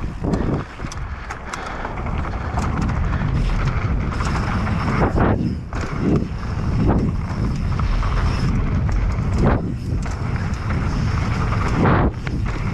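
Specialized Demo downhill mountain bike rolling fast down a rough trail, with wind rushing over the microphone and a heavy rumble from the tyres. Frequent short knocks and rattles come from the bike over roots and bumps.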